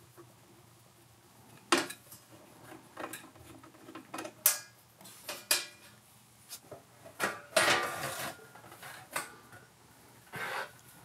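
Scattered clicks and metallic clinks, with a longer clatter a little past halfway, as a screwdriver backs screws out of a power amplifier's metal case and the loose screws and cover are handled.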